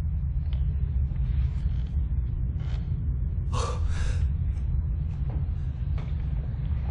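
Deep steady low rumble, with a few short sharp breaths or gasps about three and four seconds in.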